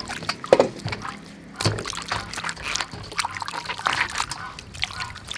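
Water sloshing and dripping as vegetables are rinsed by hand in a bowl, with a corn cob lifted out streaming water; irregular splashes and drips, a stronger splash about half a second in.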